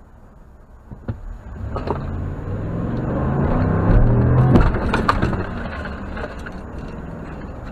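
Pickup truck's engine revving up as it pulls away from a stop, its note rising over about three seconds, then easing off after about five seconds, with a few sharp knocks and rattles mixed in around the loudest point.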